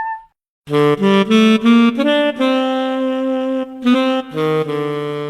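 Comedic saxophone sound effect: a quick run of short notes, then a long held note, a brief break, a few more short notes and another long held note.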